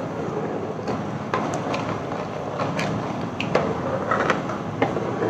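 Metal ladle stirring thick soup in a nonstick frying pan, knocking and scraping against the pan at irregular moments over a steady low hiss.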